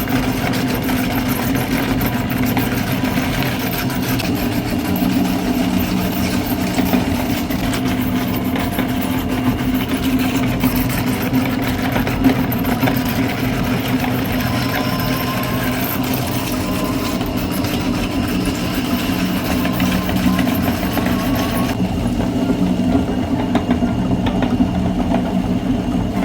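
Electric meat grinder's motor running steadily with a strong hum and grinding noise. The higher grinding noise drops away near the end while the motor hum carries on.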